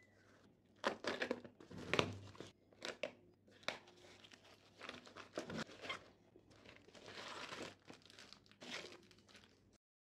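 A taped cardboard parcel wrapping being torn open and crumpled by hand: irregular rips, crinkles and crackles that stop abruptly just before the end.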